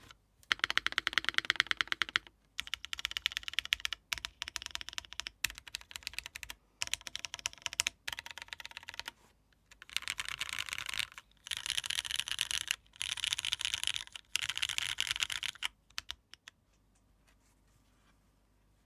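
Fast typing on a 60% mechanical keyboard with lubed, filmed and spring-swapped Cherry MX Black linear switches, a dense run of key clacks in bursts with brief pauses. The typing stops near the end, leaving only faint room hiss.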